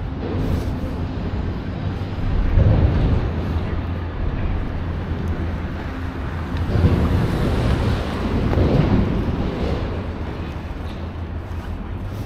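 Outdoor street noise: a steady low rumble of road traffic that swells three times, with wind on the microphone.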